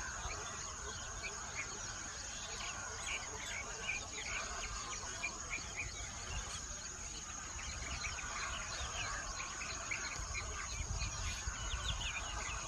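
Many small birds chirping and twittering in quick, overlapping short calls, with a steady high tone behind them.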